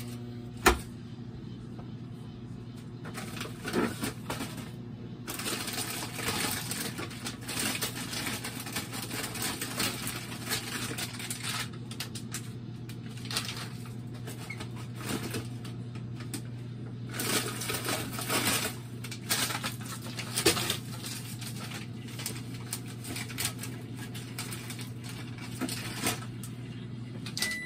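Microwave oven running for about half a minute with a steady low hum, which stops just at the end. A sharp click comes just under a second in, and scattered clicks and rattles sound over the hum.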